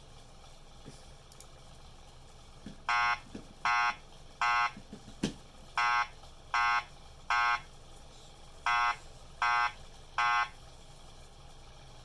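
Wheelock ET70WP fire alarm speaker strobe sounding the temporal-three evacuation tone, starting about three seconds in. It plays three groups of three short, evenly spaced tones, the standard fire evacuation signal.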